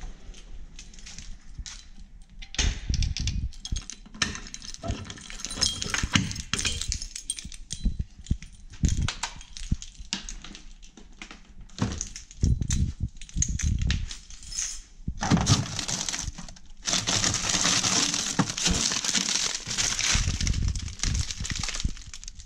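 Handling knocks and clatters around an upright freezer as its door is opened. From about 15 seconds in comes a long crackling rustle: a frozen fish in a frosted plastic bag being pulled out of a freezer drawer.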